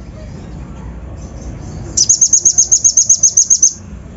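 Kolibri ninja (konin), a sunbird, singing a fast run of sharp, high chips, about eight a second. The run starts about two seconds in and lasts under two seconds, over a low background hiss.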